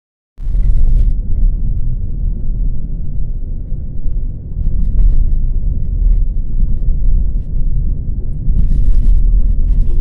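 Steady low rumble of a car driving, heard from inside the cabin, with brief spells of hiss about a second in and again near the end.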